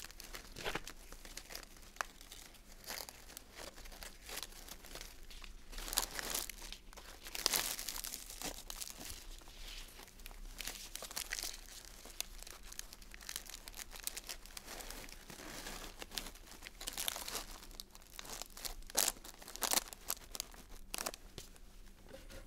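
Cellophane gift wrap crinkling and rustling under the hands while a ribbon is tied into a bow around it. The crackling comes and goes, loudest about a quarter of the way in and again about three quarters of the way through.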